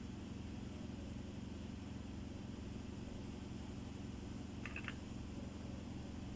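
Steady low mechanical hum, with a short faint high chirp near the end.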